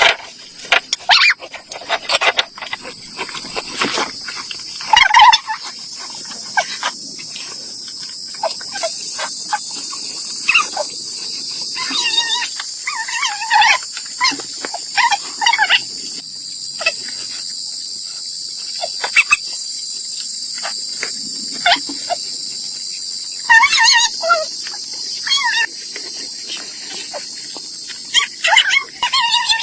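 Insects, crickets or similar, trilling in a steady high-pitched chorus, with scattered clicks and a few short calls from some other animal now and then.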